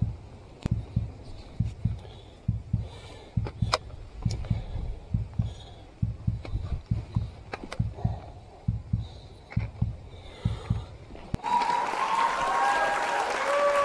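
Footfalls and body bumps of a hiker scrambling down steep rock, a run of low thuds several times a second, with a few sharp clicks of a trekking pole's tip striking the stone. Near the end the sound changes abruptly to a steady rushing hiss with a few short whistled tones.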